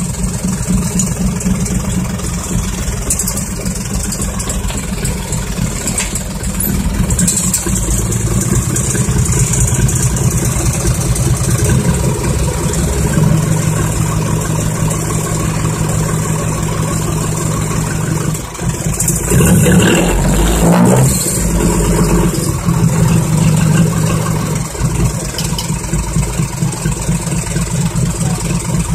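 Six-wheel dump truck's diesel engine running loud through large aftermarket exhaust pipes while the tipper bed is raised, with a few changes in pitch and a louder, rougher surge about 19 to 22 seconds in.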